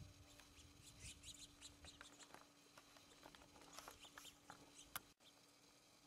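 Faint, irregular tapping and scratching of a pileated woodpecker pecking at suet in a wire-cage feeder, with one sharper click about five seconds in.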